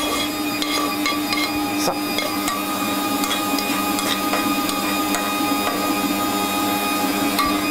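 Electric stand mixer running steadily with its lid on, whipping cream, with light scattered clicks of a spoon stirring in a mixing bowl.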